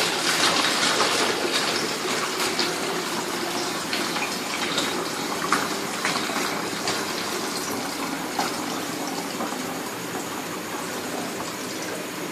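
Blue-dyed water being poured from a plastic container through a funnel into a plastic bottle: a steady gush of liquid that gradually gets quieter.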